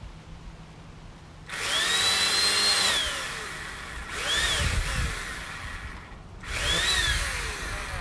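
Corded electric chainsaw triggered three times: each time the motor whines up to speed and then winds down, the first run the longest.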